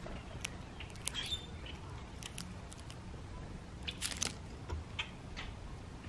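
Common grackle picking and pecking at mixed seed and corn in a wooden tray feeder: scattered sharp clicks and taps, thickest about two-thirds of the way through, over a low wind rumble.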